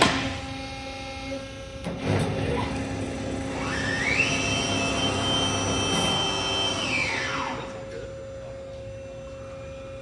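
Wood-Mizer industrial band sawmill running. A sharp knock at the start, then a machine whine that rises about four seconds in, holds steady for about three seconds and falls away.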